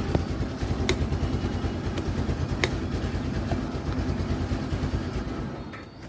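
Suzuki Access scooter's single-cylinder engine running at a steady idle, with two sharp clicks over it. It drops away near the end.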